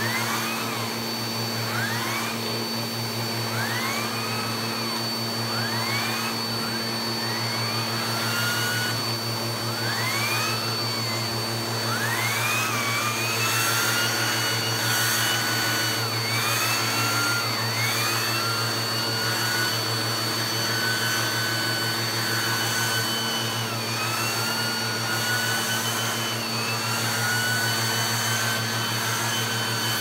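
Bissell PowerForce upright vacuum cleaner running through its hose and handheld brush tool on upholstery: a steady motor hum and whine, with a tone that rises and falls about every second or so in the first half, then holds high for longer stretches.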